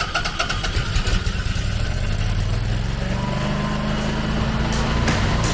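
Generac 24 kW air-cooled home standby generator running steadily just after starting up for its voltage and frequency test, with a faint rising whine from about three seconds in.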